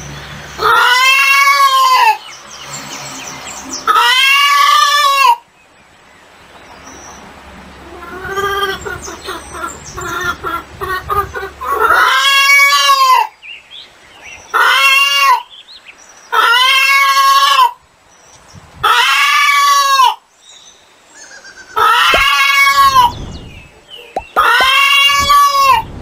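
Chicken calls: a loud, drawn-out cry with a rise-and-fall pitch, repeated about eight times at uneven gaps, each lasting about a second, with softer calls in a lull partway through.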